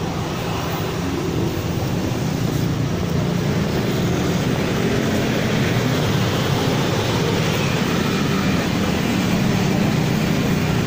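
Steady vehicle noise: a continuous low rumble with an even hiss over it, with no breaks or sudden events.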